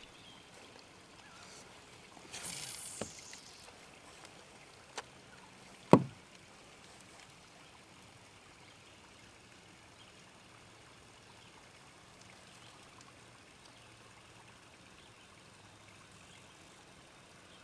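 Quiet handling noise from a fishing kayak: a brief swish about two and a half seconds in, a few light clicks, and one sharp knock about six seconds in, then a low steady background of open water.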